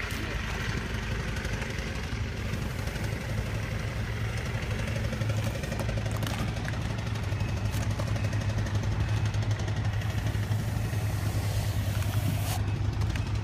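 A motor-driven machine running steadily, a low engine hum that grows a little stronger about five seconds in.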